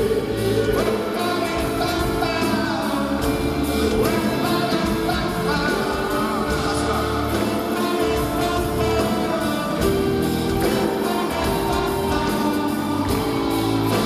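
Live rock band playing a song with singing, recorded from among the audience.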